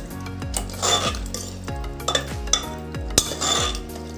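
Steel ladle stirring and scraping through wet potato and fox-nut gravy in an aluminium pressure cooker, with a sharp clink against the pot about three seconds in. Background music with a steady beat plays underneath.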